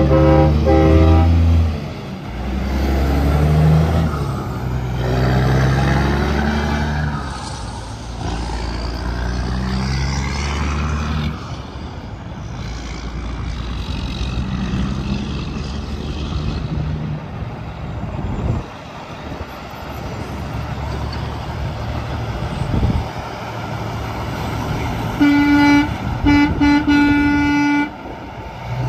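Semi trucks passing on the highway with engine drone and tyre noise. A truck air horn sounds as the clip opens and again in a few short blasts near the end.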